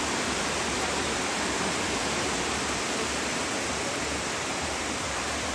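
Rushing water of a cascading waterfall, a steady, even hiss with no breaks.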